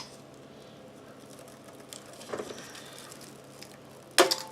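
Quiet room with a sharp click at the start, a faint rustle partway through, and a loud clatter of clicks near the end, from hard plastic and metal computer parts being handled.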